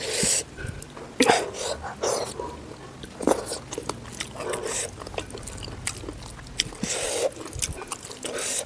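Close-miked eating sounds of someone chewing a mouthful of pork curry with dry jute leaves: irregular wet smacks and clicks, with short louder bursts every second or two.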